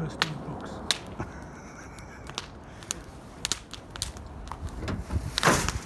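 Footsteps and handling of logs on a ground of dry fallen leaves, with scattered small clicks and knocks of wood. A louder rustling scrape comes about five and a half seconds in.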